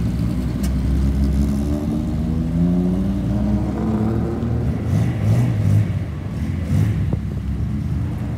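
Classic sports cars driving slowly past: a Toyota 2000GT's engine running as it rolls by, then a widebody Datsun S30 Fairlady Z pulling away with a rising engine note, loudest about five to six seconds in.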